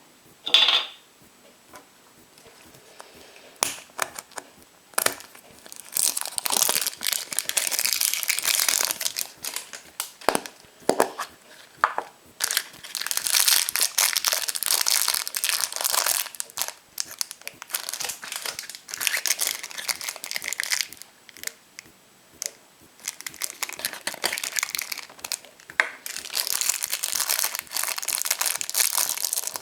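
Foil wrapper of a chocolate surprise egg crinkling as it is handled and peeled off by hand, in repeated spells of crinkling with small clicks and taps between them.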